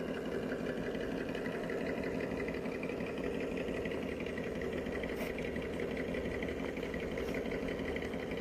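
Radio-controlled rock crawler creeping at low throttle, with a steady, even whir from its small electric motor and geared drivetrain.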